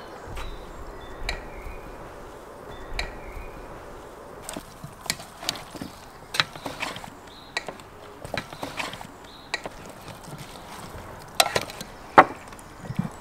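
Clinks and knocks of small glass spice bowls picked up and set down on a wooden table, and a spoon scraping and tapping in an enamel bowl of meat and vegetables as it is mixed. The sharpest knocks come near the end.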